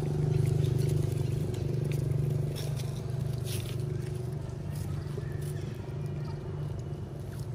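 An engine running with a steady low hum, a little louder in the first couple of seconds, with a few brief crackles of dry leaves about three seconds in.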